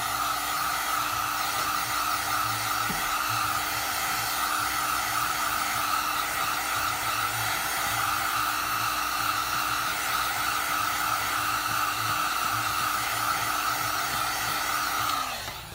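Heat gun running steadily, blowing hot air to soften the screen adhesive, with a steady whine over the rush of air; it is switched off shortly before the end.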